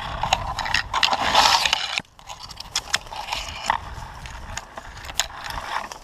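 Brush and branches scraping past the camera and dry leaf litter crunching underfoot as someone pushes through dense woods. The rustling is loudest for the first two seconds, then drops suddenly to scattered snaps and crackles.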